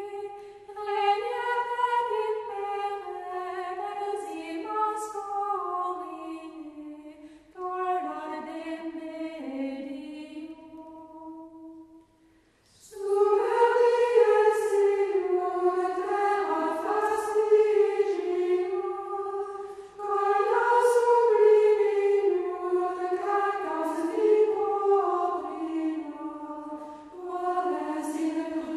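A choir singing unaccompanied in slow, held phrases. It breaks off briefly about twelve seconds in, then comes back louder.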